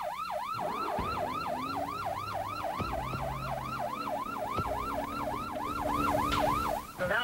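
Electronic police siren on a yelp setting: a fast rising wail that repeats about three and a half times a second, then cuts off near the end. A low steady hum and a few faint knocks run beneath it.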